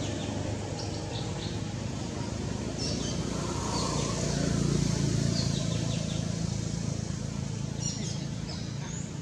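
Birds chirping in short, high calls over a steady low rumble that swells about halfway through.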